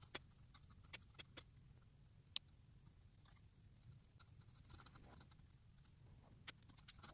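Small hand carving tools cutting into a walnut carving: scattered light clicks and scrapes as the blade bites the wood, with one sharp snap about two and a half seconds in.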